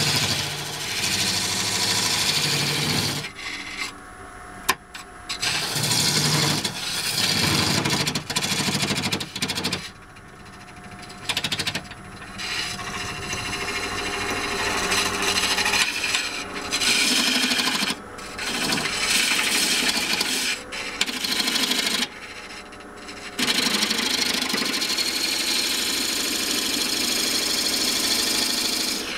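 Parting tool cutting a groove into a spinning wooden blank on a wood lathe to part off a box lid: a steady rasping scrape of tool on wood that drops away briefly several times and picks up again.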